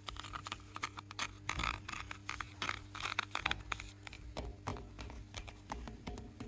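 Close-up scraping and crackling of a textured surface being handled, with many quick clicks and rustles, busiest in the first half, over a faint steady low hum.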